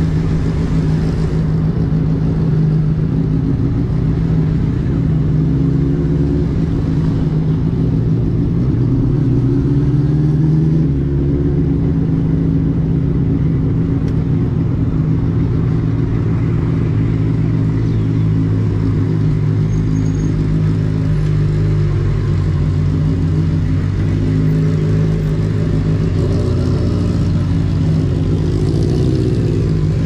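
Benelli TNT600i motorcycle's inline-four engine and exhaust running at a steady engine speed, with small rises and falls in pitch and a short rise and fall near the end.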